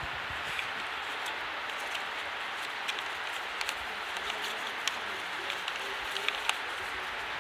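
Quiet classroom room tone: a steady hiss with scattered faint clicks and rustles from students writing notes on paper.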